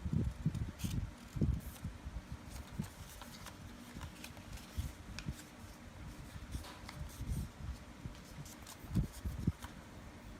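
A sheet of paper being handled and folded, with light crinkles and creasing clicks over soft low knocks against the work surface, the strongest knocks near the start and about nine seconds in.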